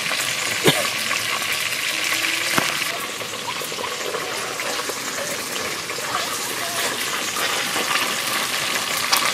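Pot of liquid cooking over a small wood fire: a steady sizzling hiss, with a sharp crackle under a second in and another a couple of seconds later.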